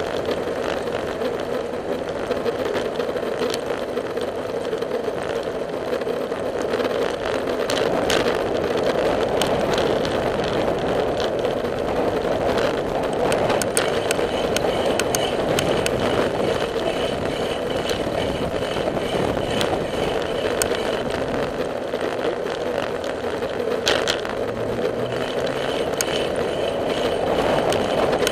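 Riding noise from a bicycle-mounted camera on a paved trail: a steady rush of air and tyres on pavement, with scattered light clicks and knocks.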